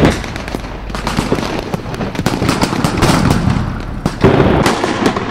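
Blank gunfire from small arms: many sharp shots, rapid and irregular, overlapping each other, with a louder cluster of shots about four seconds in.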